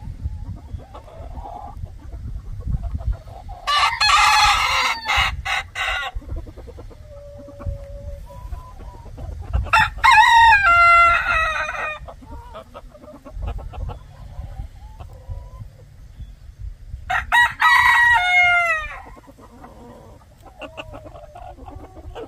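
A rooster crowing three times, each crow about two seconds long and some six to seven seconds apart. Chickens cluck softly between the crows over a steady low rumble.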